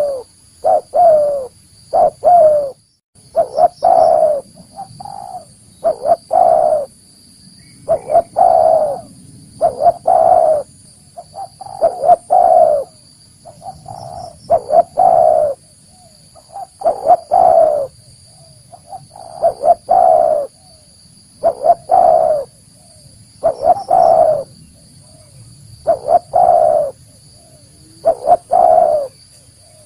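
Spotted dove (tekukur) cooing, repeating its short phrase of a few notes about every two seconds: the bird's natural call used as a lure to draw wild doves in.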